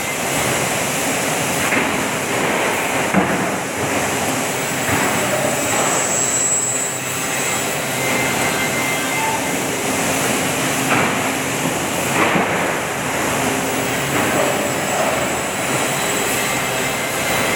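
Plywood sanding machine running: steady, loud machine noise with a few sharp knocks.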